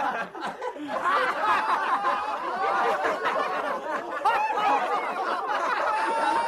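Several people laughing and chuckling together, overlapping and continuous.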